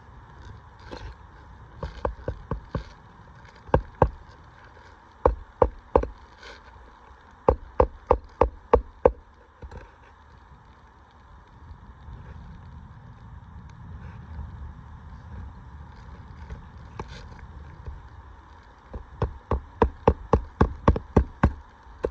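Hammer driving roofing nails into asphalt shingles, in several runs of sharp strikes with a pause in the middle and a fast run of a dozen or so blows near the end.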